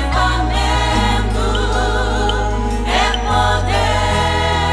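Gospel worship song: a sung voice with wide vibrato over sustained bass notes, which shift to a new note about a second in, again past three seconds and once more past four.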